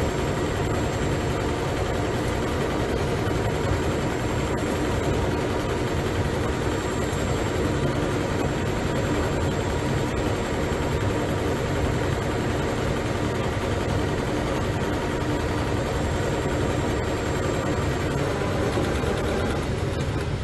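Richpeace CNC heating-wire sewing machine running steadily as its head stitches a heating wire onto fabric: a continuous hum of several held tones over a dense mechanical noise.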